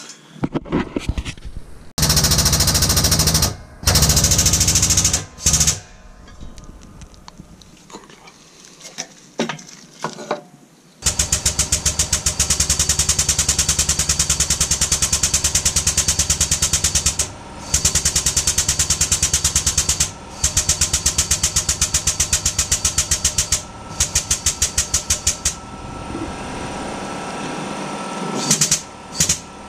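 Workshop press pump working in a fast, even pulsing rhythm, in several runs with short pauses, as the ram presses a rubber bushing into a rear suspension arm.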